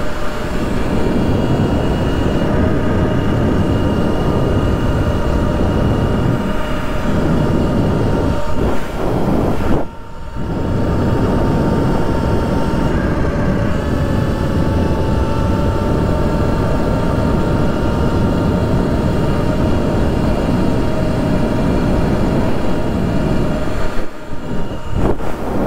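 2023 Sur-Ron X electric dirt bike riding along a paved road: its electric drivetrain gives a steady whine under heavy wind rush on the microphone. The sound drops out briefly about ten seconds in.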